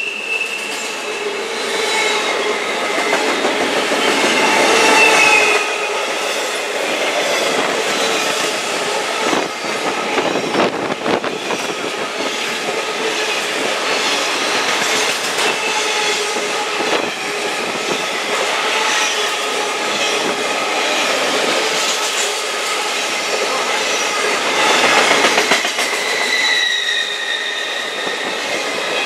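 Norfolk Southern intermodal freight cars (double-stack container cars and trailer-carrying flatcars) rolling past close by, with a steady rumble and clatter of steel wheels on rail. Thin wheel-squeal tones come and go over it, strongest about five seconds in and again near the end.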